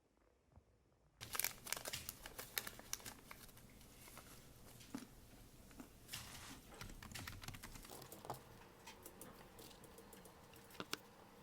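Close-up clicking and rustling, starting about a second in: many quick irregular clicks over a crinkly rustle, like hands handling crinkly material or tapping keys.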